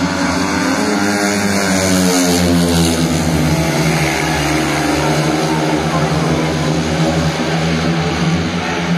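Several speedway bikes' 500cc single-cylinder methanol engines racing on the new silencers, a pack at full throttle whose engine notes rise and fall as the bikes pass and go round the bend.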